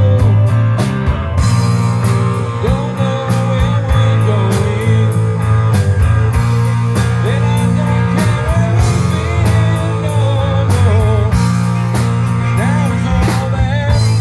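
A rock band playing an instrumental passage. A lead electric guitar line with bends and vibrato runs over bass guitar and drums with steady cymbal strokes.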